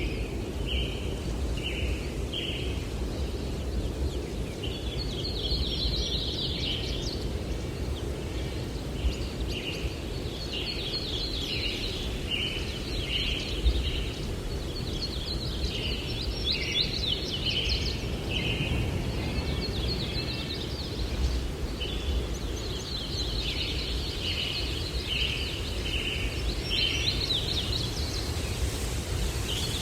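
Small songbirds chirping and twittering in repeated bursts of quick notes throughout, over a steady low rush of breeze through trees.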